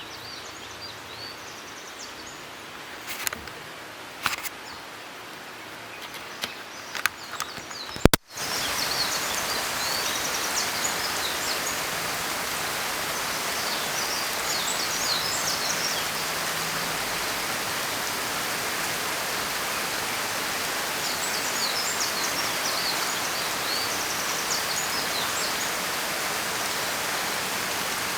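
Light rain with a few scattered drips and birds chirping; about eight seconds in, a sharp click and the rain jumps abruptly to a heavy, steady downpour, birds still chirping over it.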